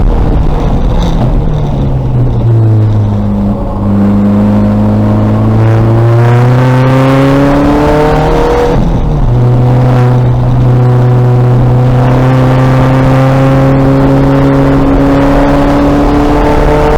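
2000 VW Golf race car's engine pulling hard under throttle. The pitch dips early, climbs slowly through a gear, drops sharply with an upshift about halfway through, then climbs again.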